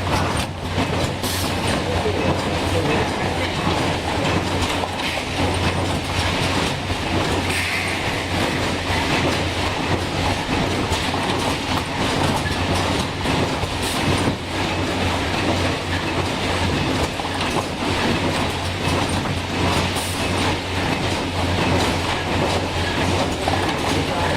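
Automatic membrane banding machine running, a steady low hum under continuous mechanical clatter and clicks as it bands package after package.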